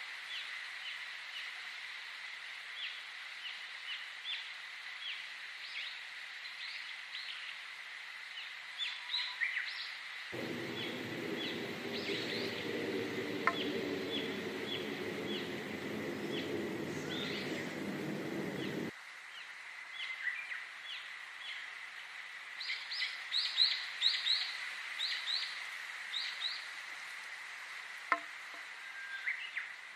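Small birds chirping in many short, quick notes over a steady high, insect-like whine. From about ten seconds in until near the end, a low droning hum joins, starting and stopping abruptly.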